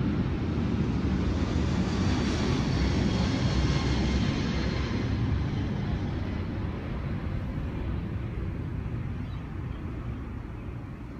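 Rushing engine noise of something passing by, loudest about two to five seconds in and then slowly fading away.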